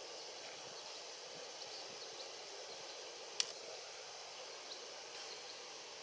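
Faint, steady outdoor background hiss with a few faint, short high chirps, broken once a little past the middle by a single sharp click.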